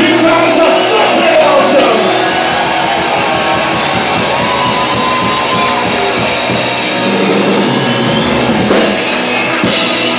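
Live punk rock band playing loud, with distorted electric guitars and a drum kit. Two loud crashes about a second apart near the end mark the close of the song.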